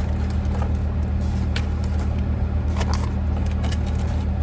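Car engine idling with a steady low hum, heard from inside the cabin, with a few light clicks of handling.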